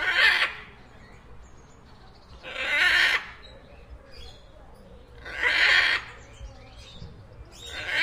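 Toco toucan calling: a harsh, raspy call of about half a second, given four times at even gaps of about two and a half seconds.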